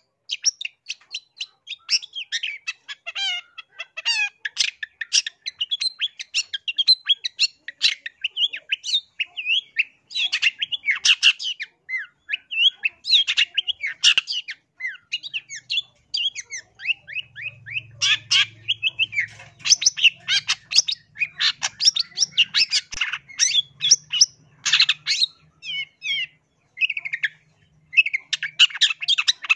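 Long-tailed shrike (cendet) singing a fast, chattering stream of short, sharp notes, quick downward-sweeping chirps and squawks, broken by brief pauses.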